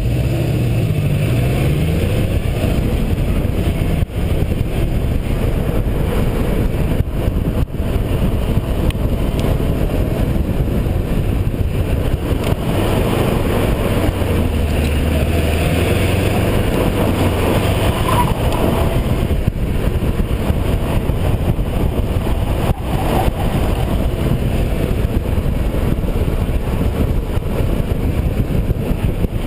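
Car driven hard through an autocross course, heard from a camera on its outside flank: the engine rises and falls in pitch under steady heavy wind rumble on the microphone and tyre noise.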